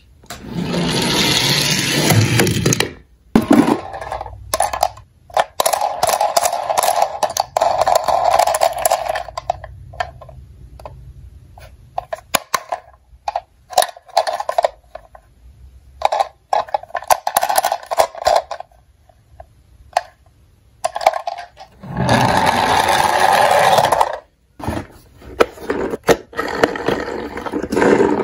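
Toy ambulances being handled over a cardboard box: bursts of scraping and rustling, with scattered clicks and knocks of plastic and metal.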